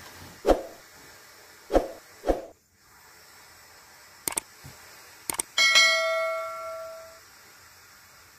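Three dull thumps in the first couple of seconds, then sharp mouse-click sounds and a bell ding that rings out and fades over about a second and a half: the click-and-bell sound effect of a subscribe-button animation.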